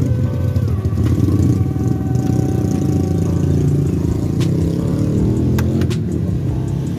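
A vehicle engine idling steadily, with a few sharp clicks about two-thirds of the way through as the air filter housing's clips are unlatched.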